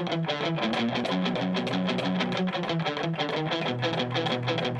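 Electric guitar, an Ibanez RG1550FM with a mahogany body fitted with a DiMarzio Crunch Lab pickup, played in quick runs of picked single notes.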